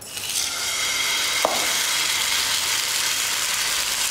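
Rice-flour uttapam batter sizzling as it hits a hot oiled pan. The sizzle starts suddenly, swells over the first half second and then holds steady, with a single light tap about a second and a half in.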